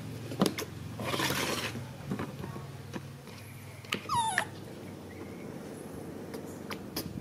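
Baby macaque squealing: a harsh cry about a second in and a sharp high squeal sliding down in pitch about four seconds in, the begging cries of a hungry infant waiting for its milk. A few light clicks and taps in between.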